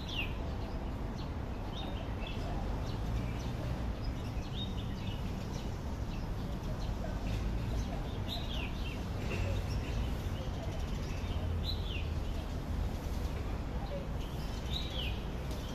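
Birds chirping in short calls that fall in pitch, a few seconds apart, over a steady low outdoor hum.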